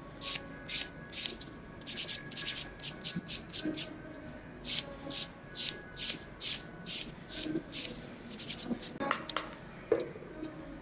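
Hand nail file rasping over a fingernail in quick back-and-forth strokes, about three to four a second, filing down old polish to remove a manicure. The strokes stop shortly before the end.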